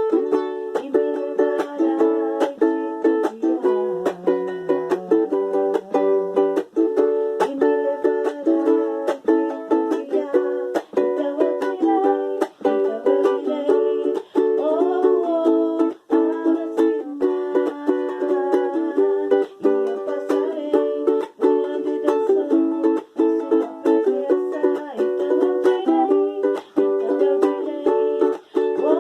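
Ukulele strummed in a steady rhythm, playing chords in an instrumental passage of a gospel praise song, in a small room.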